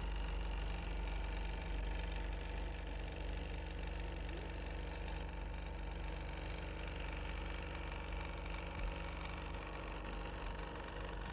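A steady, even mechanical hum, strongest in the low notes, with a fainter hiss above it.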